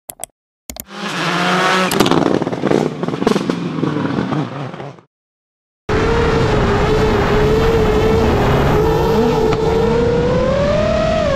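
An engine revving hard with several sharp cracks, which stops after about five seconds. After a short gap comes the steady high-pitched whine of an FPV drone's motors, wavering in pitch with the throttle and rising near the end.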